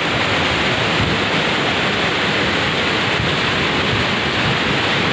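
Flash-flood torrent of muddy water carrying bamboo and wood debris, rushing past in a steady, unbroken rush.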